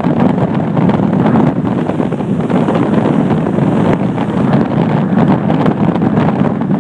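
Storm wind of 60+ mph blasting across the microphone with a loud, steady rumble, with heavy surf beneath it.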